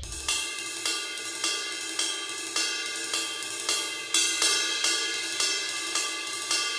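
Intro theme music with steady held tones and a regular beat of hi-hat and cymbal strokes, about two a second.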